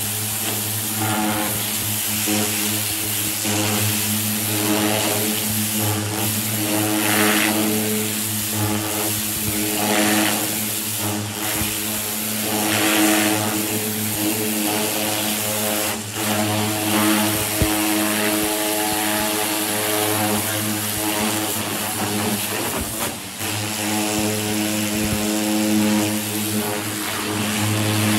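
Pressure washer running with a steady droning hum under the hiss of its high-pressure jet, which swells and eases as the jet strips paint, softened by an alkaline stripping bath, off a car's bare metal body panels.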